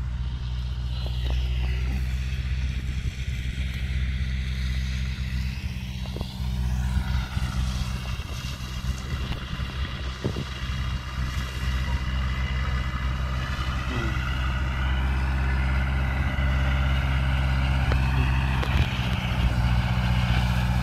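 John Deere 2250 tractor's diesel engine running steadily while it drives a Polish mower cutting alfalfa, slowly growing louder toward the end as it comes closer.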